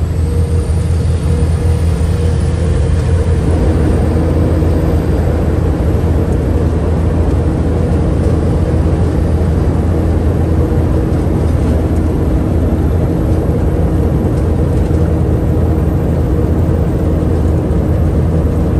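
Steady drone of a loaded diesel semi truck heard inside its cab at highway speed, the engine's low hum under road noise. The engine's tone shifts about three and a half seconds in.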